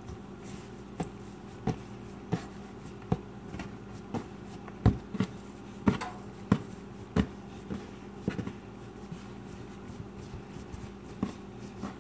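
Hands rolling and pressing a log of sugar cookie dough on a countertop: soft thumps about every half second, thinning out over the last few seconds, over a steady low hum.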